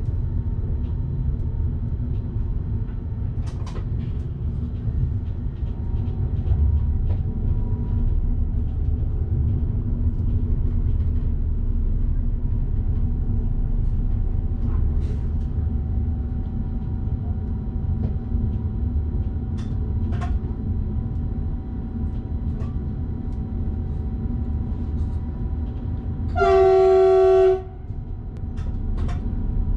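Steady low rumble of a train running on the rails, heard from the driver's cab, with faint clicks. Near the end the train horn sounds one loud blast about a second long.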